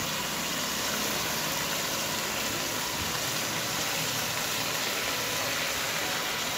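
Food sizzling steadily in a wok, an even frying hiss.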